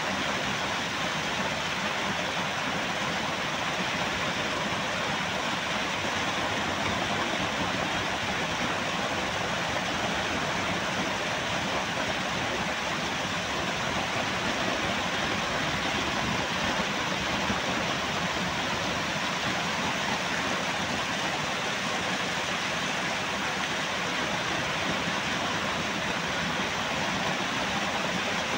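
Waterfall: a sheet of water pouring into a foaming pool, a steady, unbroken rush of splashing water.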